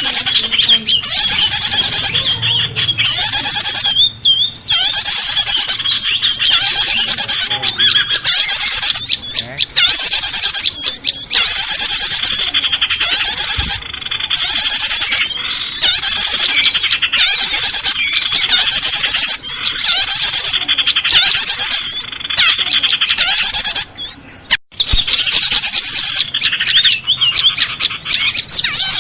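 Bird-lure (pikat) recording: a dense, loud chorus of small birds chirping and twittering without pause, with a brief break about 24 seconds in.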